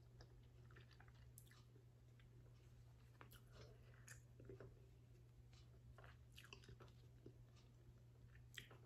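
Faint chewing and mouth sounds from a person eating a soft taco, with scattered soft clicks, over a low steady hum.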